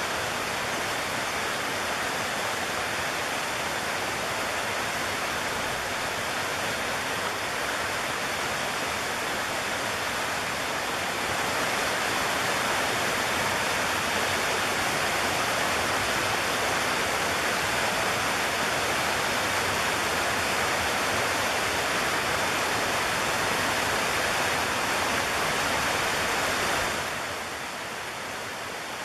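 Shallow stream rushing over stones: a steady water noise that grows a little louder about a third of the way in and drops back near the end.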